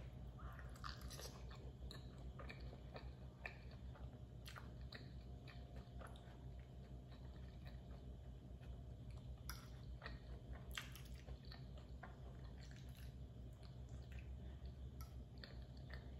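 Close-up chewing of a mouthful of creamy pasta, with soft wet mouth smacks and small clicks scattered through.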